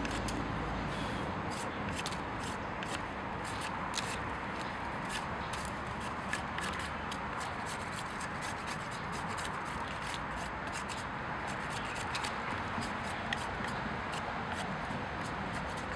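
Knife blade scraping bark off a green poplar branch in quick, repeated strokes, each a short sharp scrape, a few a second.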